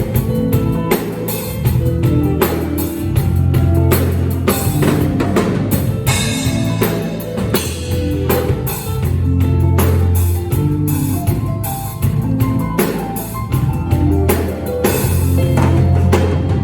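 Live band music at a sound check: drum kit hits in a steady beat over long held bass notes.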